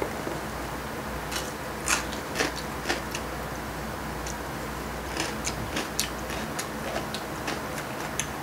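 Close-up eating sounds: irregular sharp clicks and crunches from chewing and from chopsticks tapping against a plate, over a low, steady room hum.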